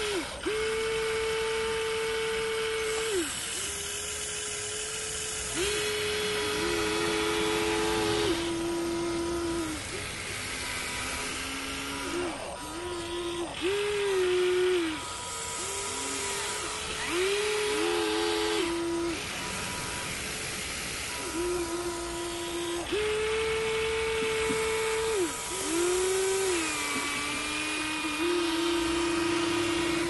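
Huina 1594 RC excavator's electric motors whining as it digs and swings its boom. The steady whine shifts between a higher and a lower pitch every few seconds, breaking off briefly and starting again as each movement of the arm and bucket begins and ends.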